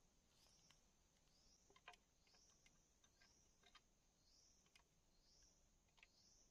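Near silence: faint light clicks and taps as hands work the string and trigger of a bamboo trap, with a faint high chirping call repeating about once a second.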